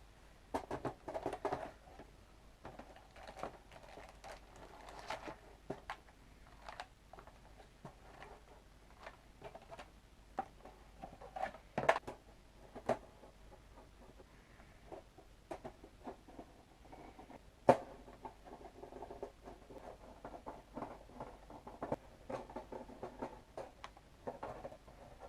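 Small hard parts being handled on a desk: scattered light taps, clicks and rustling, with two sharper knocks about twelve and eighteen seconds in.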